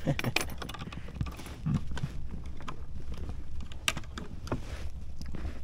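Metal fish stringer being pulled in by its rope at the side of a kayak: scattered clicks and clinks from the stringer's metal clips and hardware.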